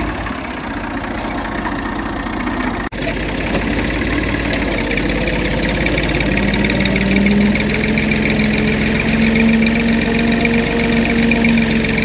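Farm tractor's diesel engine running steadily while pulling a ridger plough through loose soil to form bunds. The sound drops out for an instant about three seconds in, and a steady hum grows stronger after about six seconds.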